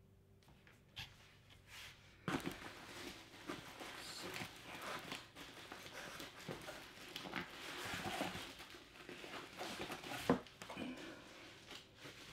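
Hands rummaging inside a cardboard shipping box: dense rustling and scraping with small clicks, starting suddenly about two seconds in, and a sharp knock near the end.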